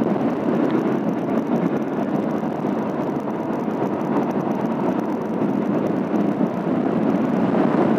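Steady rush of wind and road noise from a moving motorcycle, picked up by a phone microphone mounted on the rider's helmet.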